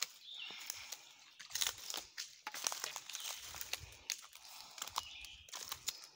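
Footsteps crunching through dry leaf litter and twigs: irregular crackling with soft dull thuds underfoot.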